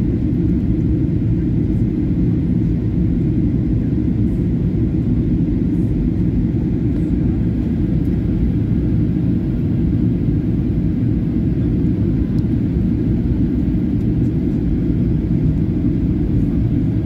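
Airliner cabin noise on approach: jet engines and rushing air heard from inside the cabin, a steady low hum that does not change.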